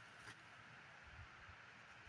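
Near silence: a faint steady hiss of outdoor background, with one faint click a fraction of a second in.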